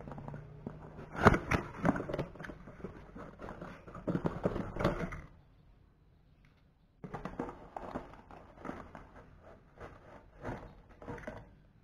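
Cardboard box and plastic toy birdcage parts being handled during unboxing: rustling cardboard with light knocks and clicks of plastic. The sound comes in two spells with a pause of about a second and a half between them, and the sharpest knock is about a second in.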